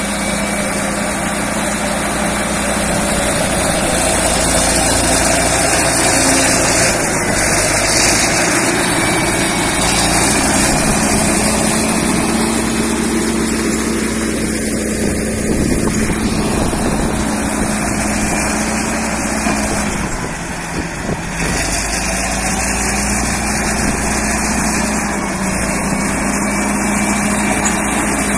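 Diesel engine of a Caterpillar crawler track loader running steadily under light working load, easing off briefly about two-thirds of the way through.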